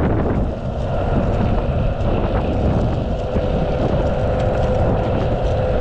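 Wind buffeting the microphone while riding a Mototec 600W belt-drive electric skateboard, with its wheels rolling over rough asphalt. A thin, steady whine from the board's motor runs under the wind noise.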